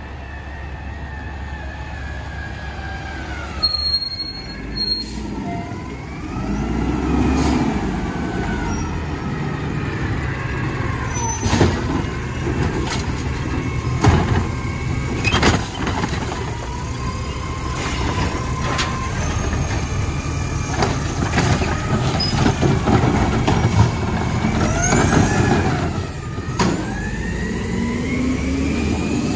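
Natural-gas-powered automated side-loader garbage truck at work. The engine and hydraulics rise and fall in pitch, air brakes hiss, and there are repeated sharp bangs as the lifting arm grabs the carts at the curb and empties them into the hopper.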